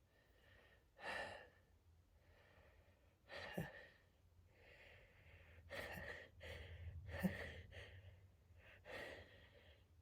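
Quiet gasps and sighs of a stuck sneeze building up: about five short, breathy intakes and outbreaths a second or two apart, none releasing into a sneeze, the sharpest catch of breath about seven seconds in.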